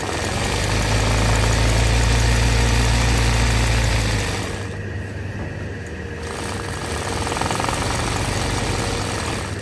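Electric sewing machine stitching free-hand embroidery in white thread, running steadily with a low mechanical hum. It eases briefly near the middle, then runs on.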